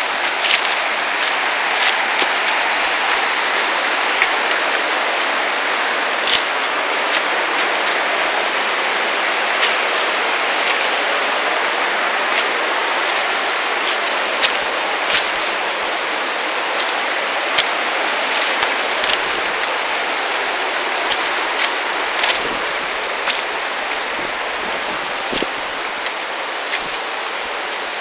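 Water rushing steadily, like a stream over rocks, with scattered sharp ticks and splashes through it.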